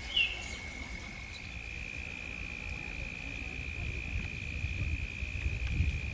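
An insect trilling on one steady high note without a break, with a bird chirping briefly just after the start.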